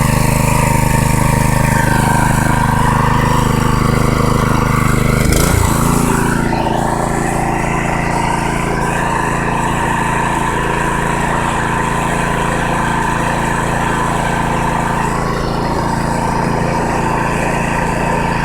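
Predator 212cc single-cylinder four-stroke engine running steadily on fresh oil, smoothly. About five and a half seconds in its speed changes as the throttle is moved, then it holds steady.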